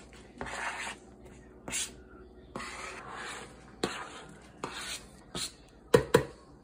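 A metal fork scraping across a flexible plastic cutting board in a series of short strokes, pushing chopped vegetables and bacon off into a plastic bowl. Two sharp taps near the end are the loudest sounds.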